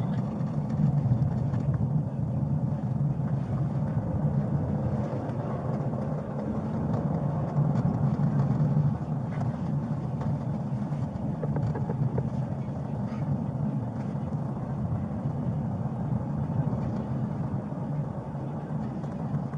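Police car driving, its steady engine and road noise heard from inside the cabin.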